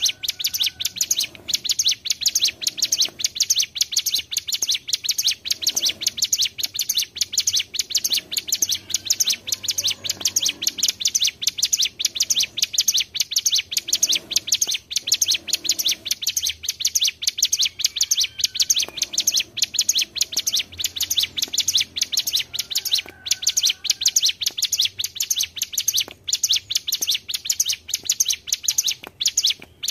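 Ciblek gunung (hill prinias) singing together in a continuous, very fast high rattling trill that runs on without a break: the long 'ngebren' song used as a lure recording.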